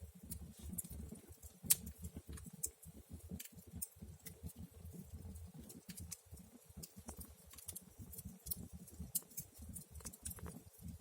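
Wood fire crackling in a fireplace: irregular sharp pops and snaps over a low rumble.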